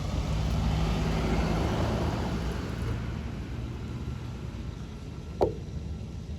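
A motor vehicle passing by: a rushing noise over a low engine hum that swells over the first couple of seconds and fades away. One short, sharp click about five and a half seconds in.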